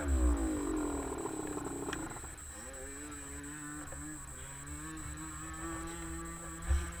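A small petrol engine's pitch falls sharply over the first two seconds, then it runs on steadily at a low, even pitch.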